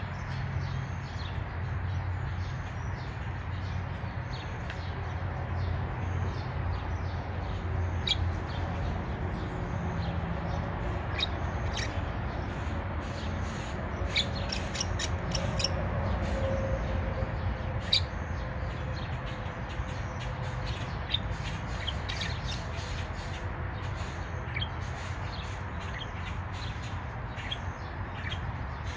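Backyard birds chirping with short, scattered calls over a steady low rumble.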